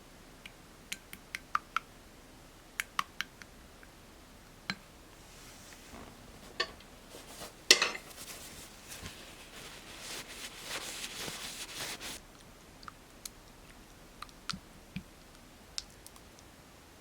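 Light clicks and taps of small containers and tools handled on a tabletop while making slime, with one louder knock about eight seconds in and several seconds of rustling, stirring-like handling noise around the middle.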